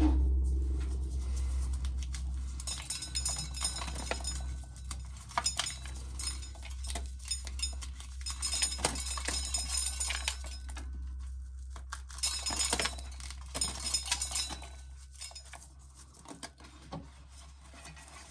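Dried corn kernels being shelled off the ear, clinking and pattering in irregular bursts, as into a pail. A low rumble fades away over the first few seconds.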